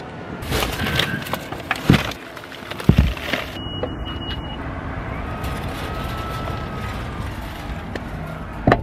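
Plastic grocery bags rustling and thumping into a car's trunk, with two heavy thumps about two and three seconds in. The trunk hatch shuts with a sharp clunk near the end.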